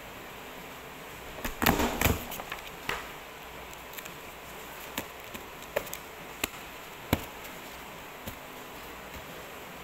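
Paper being worked through a desktop two-hole paper punch: a burst of loud sharp knocks and crackle about a second and a half in, then scattered single light clicks and taps as the sheets and punch are handled.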